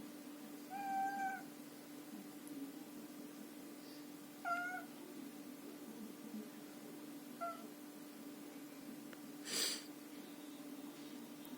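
Domestic cat meowing three times: a longer meow about a second in, then a shorter falling one and a very short one. A brief breathy noise comes near the end, over a faint steady hum.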